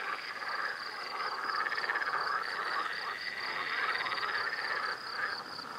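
A dense chorus of many frogs croaking together without a break. A high, fast, regular pulsing runs above it throughout.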